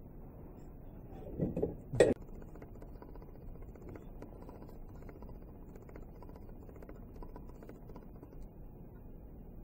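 A brief rustle and then a single sharp knock about two seconds in, followed by a steady low room hum with a few faint clicks.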